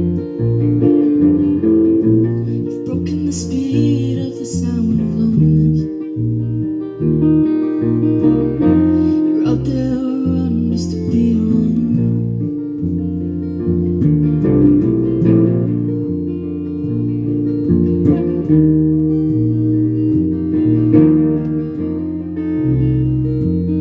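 A band playing a folk-country song: guitar strumming over a moving bass line.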